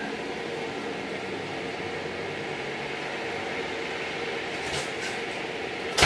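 Steady hum and hiss of an indoor room, with a few faint clicks near the end and a sharp knock at the very end.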